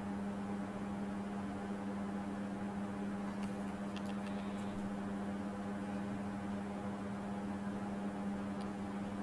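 Steady low hum of room or equipment noise with a stack of overtones, and a few faint clicks about four seconds in and once more near the end.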